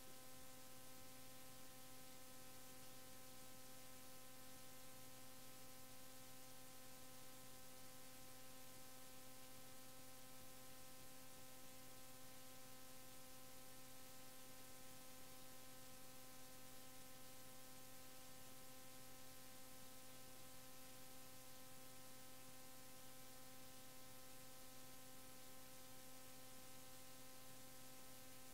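Near silence: a steady low electrical hum with faint hiss.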